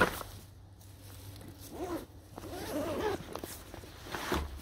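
Backpack zipper pulled open in two short strokes, each a rasp that rises and falls in pitch with the pull. A sharp knock at the very start is the loudest sound.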